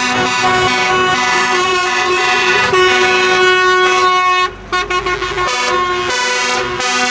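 Truck air horns sounding in long held chords, breaking off briefly and then sounding again, over a convoy of trucks pulling away.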